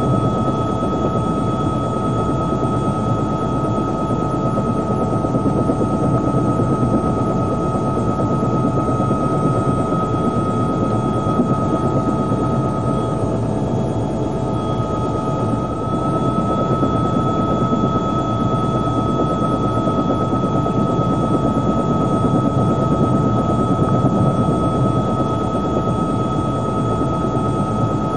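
Helicopter engine and rotor noise heard from on board: a steady, loud drone with a constant high whine, which briefly falters about halfway through and comes back slightly higher.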